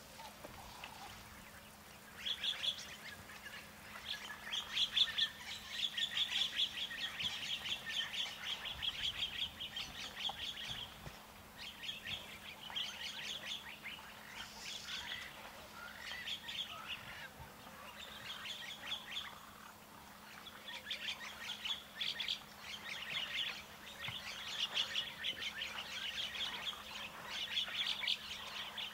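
A chorus of rapid, high chirping trills from wild animals, coming in bouts of a few seconds and starting about two seconds in, over a faint steady low hum.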